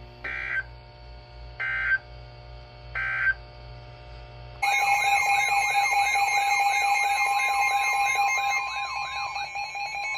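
Emergency Alert System alert tones. First come three short, buzzy SAME data header bursts about a second and a half apart, then from about four and a half seconds in a loud alert tone warbling up and down about three times a second over a steady tone. They mark the start of a new warning broadcast.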